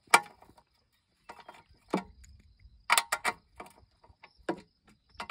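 Hand ratchet clicking and metal tool clinks as bolts are undone on a lawnmower engine's metal shroud: a handful of sharp, irregular clicks.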